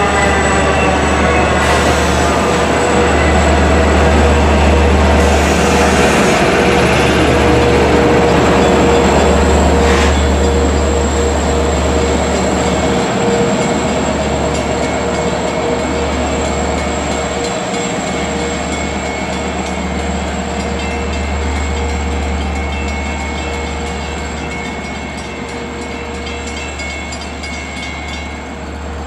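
Long Island Rail Road train running past a station platform: a whine that falls in pitch at the start, then a steady rumble with a held tone, slowly fading.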